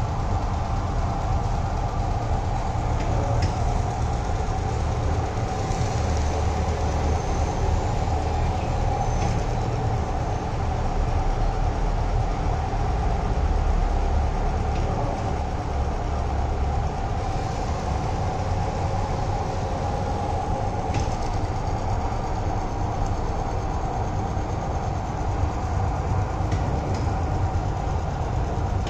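Tape log-roll cutting machine running steadily, the mandrel spinning a log of double-sided tissue tape while the blade slices it into rolls: a constant mechanical hum with a steady whine over a low rumble and a couple of faint clicks.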